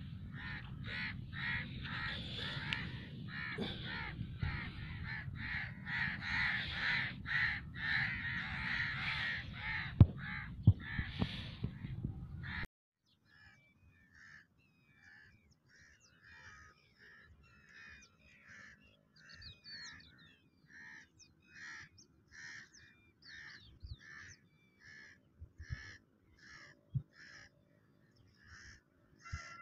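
A flock of birds calling noisily over a low wind rumble. About twelve seconds in, this cuts off sharply to quieter calls repeated evenly, about three every two seconds.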